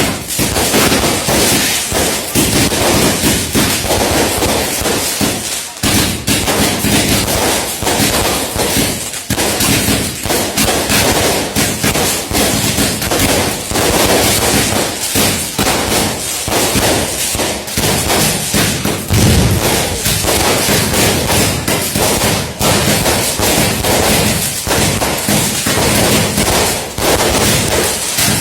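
Daytime fireworks going off in a dense, unbroken run of bangs and crackles.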